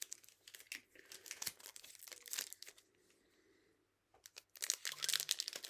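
Plastic wrapper of a Topps Chrome trading card pack being torn open and crinkled: crackling and rustling that goes quiet for a moment about three seconds in, then picks up as dense crinkling near the end.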